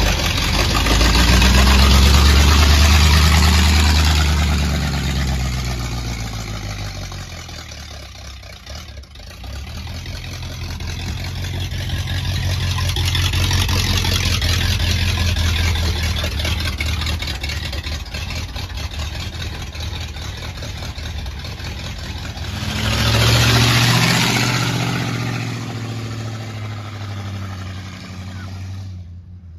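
1950 Ford F1's flathead V8 running as the truck is driven, its note rising and falling with engine speed. It is loudest about three seconds in and again near the end, and cuts off suddenly at the very end.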